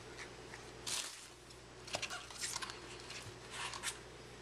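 Hands handling a hinged black card box and its wrapping on a stone countertop: irregular rustling with a sharp click about two seconds in.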